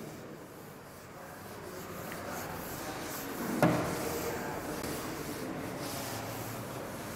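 Chalkboard duster scrubbing back and forth across a chalkboard, wiping off chalk writing. A brief knock about three and a half seconds in.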